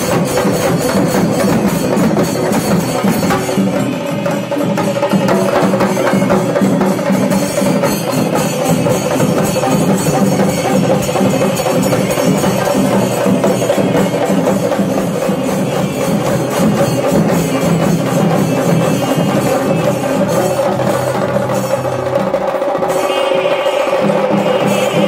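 Singari melam: a troupe of chenda drums beaten with sticks in a fast, dense, unbroken rhythm.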